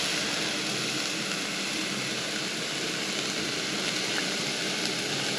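Steady hissing sizzle of onions sautéing in oil on a portable gas cartridge stove, blended with the rush of its burner turned up high.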